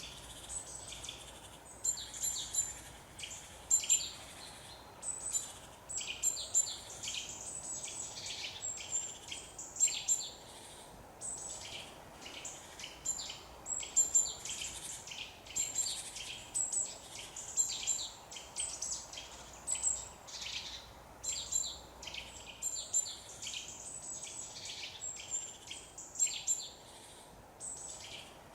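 Woodland birdsong: several small birds chirping and singing, with short, high-pitched calls and trills that overlap and follow one another without pause, over a faint steady hiss.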